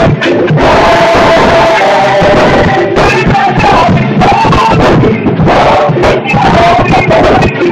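Church choir singing a gospel song, backed by a live drum kit and piano.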